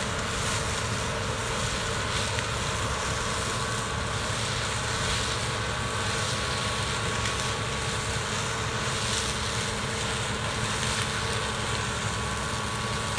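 Combine harvester running steadily while harvesting oats: a constant machine drone with a few steady whining tones.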